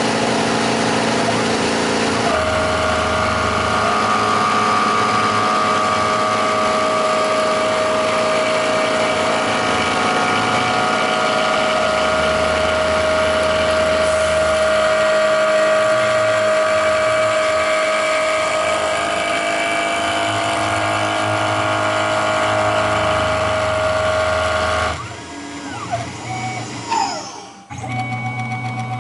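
Tormach PCNC 1100 mill running, its spindle giving a steady whine while a thread mill cuts an internal thread in a brass ring. Near the end the cut finishes and the spindle whine falls away.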